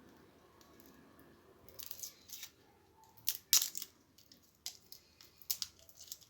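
Crackling and tearing of a head of garlic's papery skin as it is handled and broken apart, with a few sharp clicks; the sharpest comes a little after halfway.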